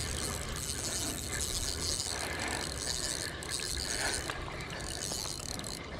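Spinning reel being cranked steadily, its gears running as a hooked fish is reeled in.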